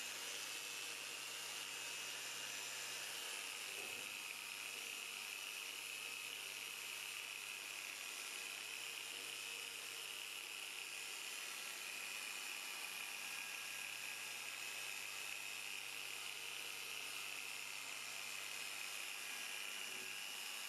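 Small hand polisher's electric motor running steadily with a high-pitched whine, its foam pad polishing a plastic car headlight lens.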